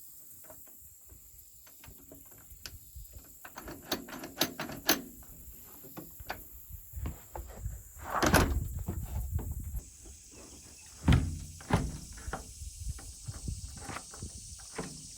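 Doorknob and deadbolt hardware on a door being handled and fitted, with many small metal clicks and rattles. A heavier knock lasts about a second past the middle, and two sharp knocks follow soon after.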